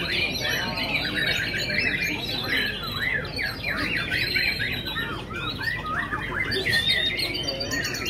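Many white-rumped shamas (murai batu) singing at once in contest cages: a dense chorus of fast whistled phrases that rise and fall and overlap.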